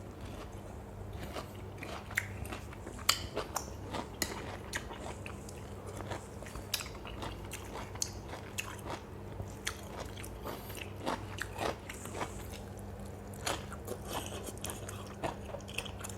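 A person biting and chewing crunchy food, crisp raw lotus stems, close to the microphone, with frequent sharp crunches. A steady low hum runs underneath.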